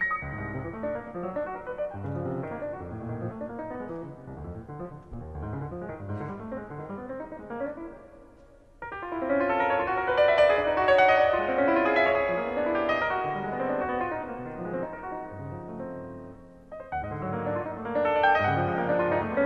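Solo acoustic piano improvisation: dense, low-register figures for about eight seconds, a brief drop-off, then louder, brighter repeated figures in the middle register, easing briefly again near the end before picking back up.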